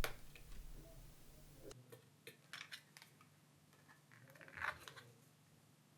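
Faint small clicks and taps of a phone's battery flex connector being lined up and pressed onto the board, with a short soft sound about four and a half seconds in.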